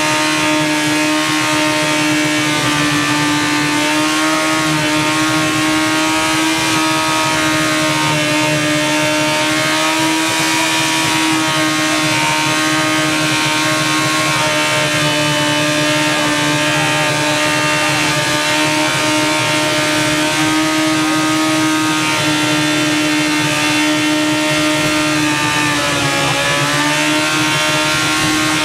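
Yamaha R1 inline-four motorcycle engine running continuously at a steady speed while it is deliberately run to destruction, smoking heavily. Near the end its pitch dips briefly and then comes back up.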